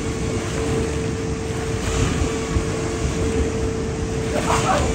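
Water rushing and splashing as artificial waves surge through a wave pool, a steady loud rush with a deep rumble and a faint steady hum underneath.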